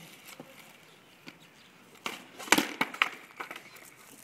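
Skateboard ollie attempt on asphalt: a wooden board's tail snaps on the road about two seconds in, then the board lands hard and clatters with a few more knocks as the rider comes off it.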